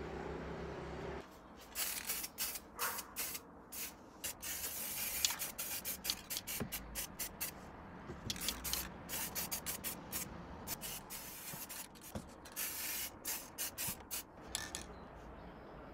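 Aerosol spray can of silver lacquer paint sprayed in many short hissing bursts, roughly two a second, starting about a second in.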